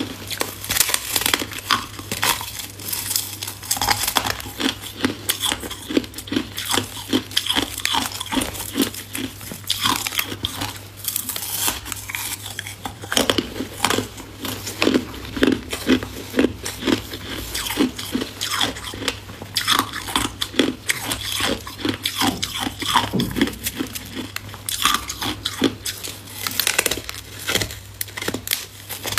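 Hard ice frozen in a plastic water bottle being bitten and chewed: a dense, irregular run of sharp crunches and cracks as pieces snap off and are ground between the teeth.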